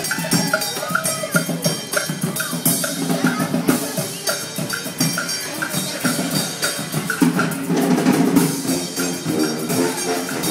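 Brass band playing live: trombones and a tuba carry the tune over a steady beat of snare and bass drum.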